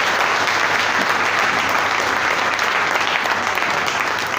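Church congregation applauding at the close of a sermon, a steady round of clapping that begins to thin out near the end.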